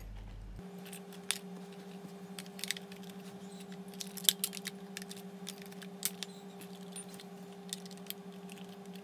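Small plastic clicks and scrapes as an AA battery is pressed into the battery compartment on the back of an IKEA Dekad alarm clock and the cover is handled; a few separate clicks, the sharpest about four seconds in, over a faint steady hum.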